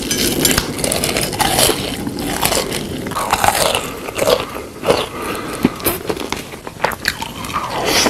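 Irregular crunching and biting sounds of someone eating, close and loud.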